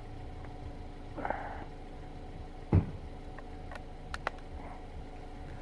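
A single .22 LR rimfire shot of Norma Eco Speed lead-free 25-grain solid-point ammunition, a sharp crack about three seconds in, followed about a second and a half later by two small sharp clicks, over a steady low background hum.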